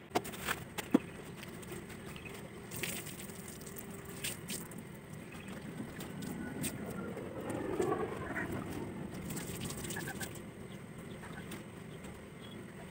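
Faint outdoor ambience with birds calling, and a few sharp clicks in the first second.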